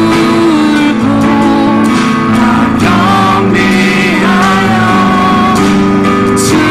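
Korean worship song sung by a small praise team, with acoustic guitar accompaniment and a melody held over steady sustained chords.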